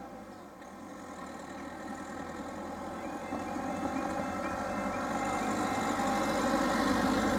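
A small camper van's engine and tyres approach and pass close by, growing steadily louder toward the end. About three seconds in, the level crossing's alarm starts up, a quick repeated warbling tone about three times a second, signalling that the barriers are about to come down for a train.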